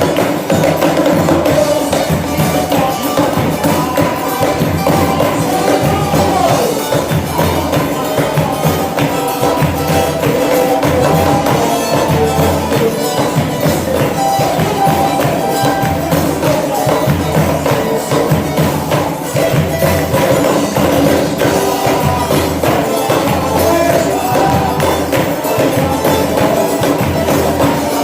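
Live gospel worship music with a steady beat of percussion strokes under a sustained melody.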